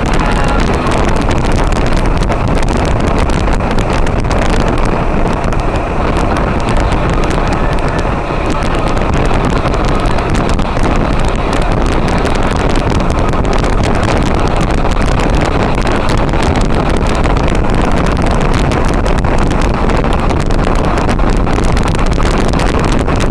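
Honda NT700 motorcycle at highway speed: steady, loud wind rushing and buffeting over the on-bike camera's microphone, with engine and road noise beneath it.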